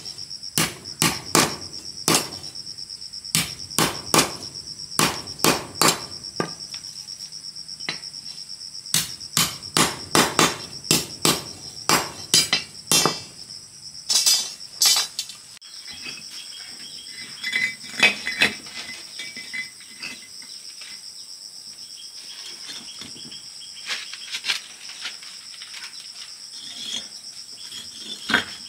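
Rapid sharp knocks, about two a second, as bricks are struck while a brick-and-cement stove is built. The knocking stops about halfway through, leaving a few scattered taps. A steady high insect trill of crickets runs underneath.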